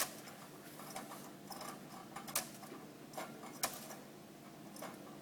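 Faint, sharp clicks and taps at irregular intervals, a few seconds apart, from a pet canary moving about its cage.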